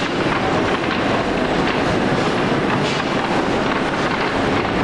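Potato sorting line running: a steady, dense clatter of potatoes tumbling over the roller table and conveyor, with the machine's rattle underneath.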